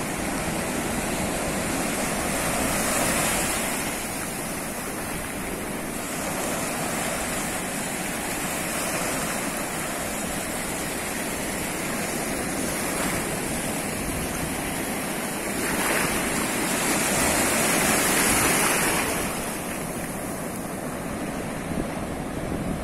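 Ocean surf: a steady rush of breaking waves and foam washing through the shallows. It swells louder a few seconds in, and again, most strongly, about two-thirds of the way through.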